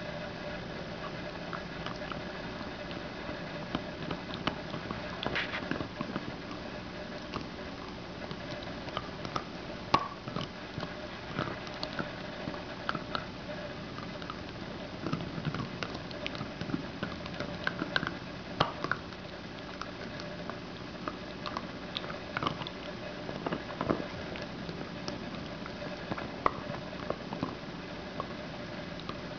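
A dachshund gnawing on a hard white chew bone: irregular clicks and scrapes of teeth on the bone, with a steady faint hum underneath.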